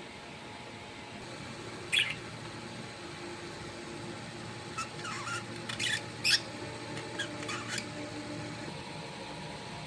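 Short, high-pitched chirps and squeaks from a small pet animal: one about two seconds in, then a quick cluster around the middle, over a steady background hum.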